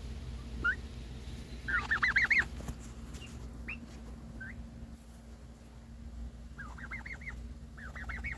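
Turkeys calling: a few short, single rising chirps, and quick runs of high repeated notes, loudest about two seconds in, with two more runs near the end.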